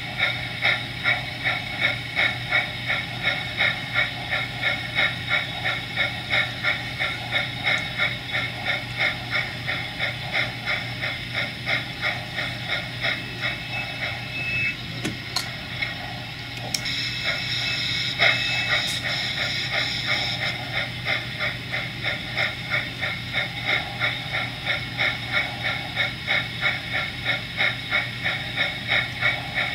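Sound-equipped HO-scale model steam locomotive chuffing steadily at about two beats a second, with a hiss. The chuffing goes softer for a few seconds around the middle, and a couple of sharp clicks come just past halfway.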